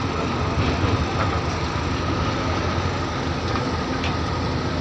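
Heavy diesel machinery running: a steady low engine rumble with a thin steady whine above it and a few faint clanks.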